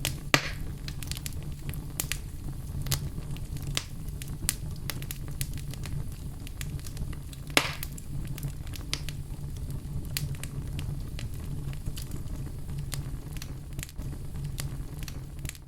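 Wood fire crackling in a fireplace: a steady low rumble of flames under frequent small crackles, with two louder pops, one right at the start and one about halfway through.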